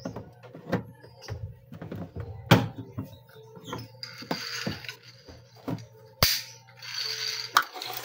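Scattered light knocks and clicks of hands tapping and handling a washing machine's sheet-metal back panel, with two short stretches of rustling and scraping in the second half as a clamp meter is picked up.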